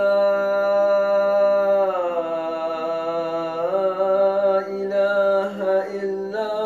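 A man chanting Quranic recitation in Arabic into a handheld microphone. He holds one long, steady note, lets the pitch slide down about two seconds in, lifts it again near four seconds, then moves into shorter melodic phrases.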